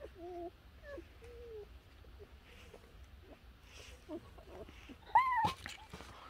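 Newborn Doberman puppies making faint short squeaks and whimpers, then one louder, short cry that rises and falls about five seconds in.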